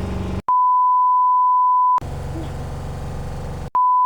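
A loud, steady single-pitch bleep tone, cut in and out sharply, sounds twice, each time for about a second and a half. It has the flat, even shape of an edited-in censor bleep. Between the two bleeps a steady mechanical hum runs for about two seconds.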